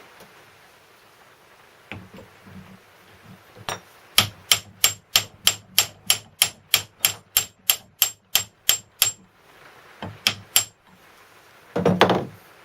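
A steady run of light hammer taps, metal on metal, about three or four a second, driving the crankshaft of a Stuart Turner N two-stroke marine engine home into its new bearings. After a short pause come two more taps, then one louder clunk near the end.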